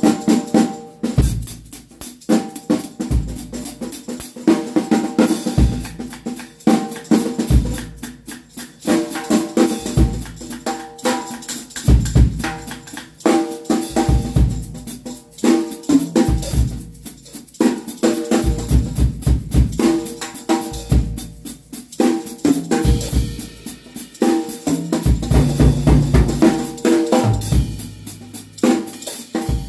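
Acoustic drum kit played without a break, with kick drum and snare strokes and the jingle of a stick-mounted tambourine's steel jangles over them.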